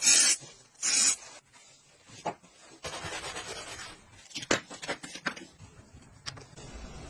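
Aerosol can spraying into a leather boot in two short hisses, then a sponge rubbing over the boot's leather, followed by a few sharp clicks.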